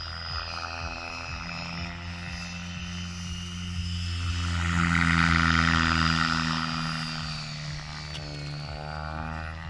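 Gaui X5 Formula RC helicopter flying past: a steady rotor and motor whine that swells to its loudest about five seconds in and fades again, its pitch bending slightly near the end.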